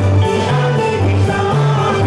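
Comorian toirab (taarab) music played loud: a band with singing over a bass line that moves between notes about twice a second.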